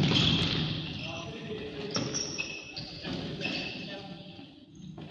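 Futsal game in a large sports hall: a hard ball kick right at the start, then sneakers squeaking on the hall floor and players shouting, all echoing around the hall.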